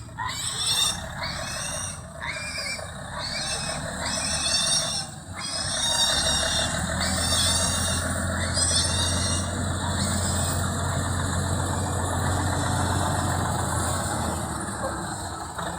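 An engine running steadily, its low hum growing stronger about six seconds in. Over it, a high, arching call repeats a little more than once a second and stops about nine seconds in.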